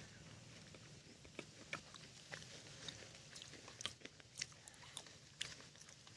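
Faint crunchy chewing close to the microphone: scattered small crackles at an uneven pace, several a second.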